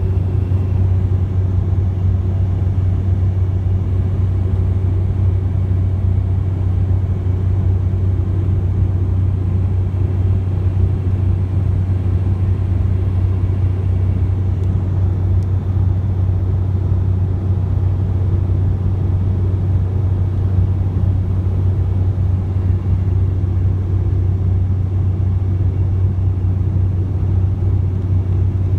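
Jet airliner cabin noise during the climb after takeoff: the engines and rushing air make a constant deep drone that holds steady without change.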